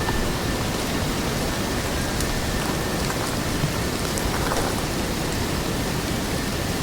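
Autumn forest ambience: a steady, even wash of noise of the kind rain or running water makes. A few faint ticks and a faint, steady high tone sit on top.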